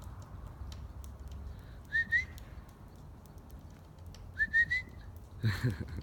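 A person whistling short, rising chirps to call a squirrel: two quick notes about two seconds in, then three more a couple of seconds later. A brief muffled sound follows near the end.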